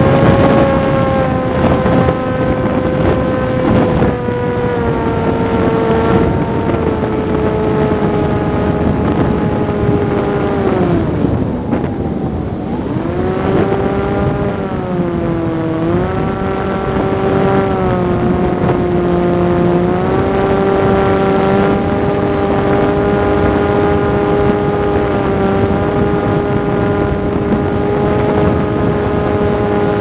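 Electric RC plane's brushless outrunner motor and propeller whining on a landing approach, with wind rushing over the microphone. The pitch sinks about ten seconds in as the motor slows, briefly rises and dips again, then holds steady a little lower than at the start.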